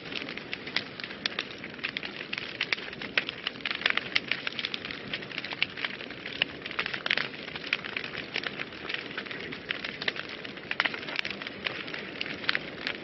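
Wood fire burning in a fireplace, crackling steadily with dense, irregular pops and snaps over a soft hiss.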